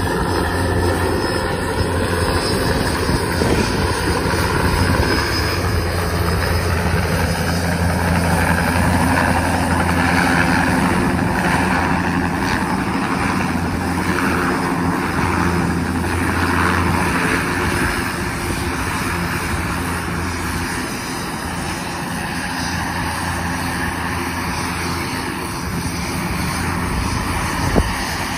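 OH-58 (military Bell 206) helicopter hovering low and settling onto a truck's platform: a steady rotor beat with turbine engine hum, a little quieter in the second half, and one brief knock near the end.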